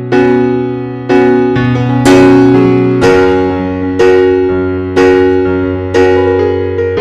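Background piano music: chords struck about once a second, each ringing out and fading before the next.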